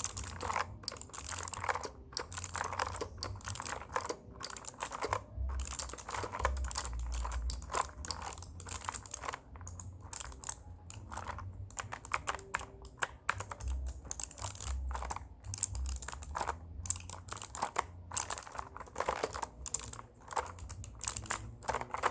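Typing on a computer keyboard: fast runs of clicking keystrokes in bursts, broken by short pauses.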